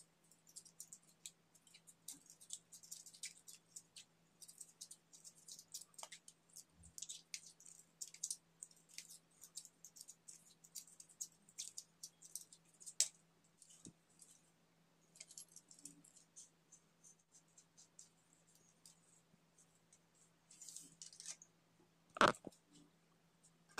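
Faint, irregular crackling and ticking of PTFE thread-seal tape being pulled off its roll and wound around the threaded metal end of a bidet sprayer, with hands handling the parts. One louder knock near the end.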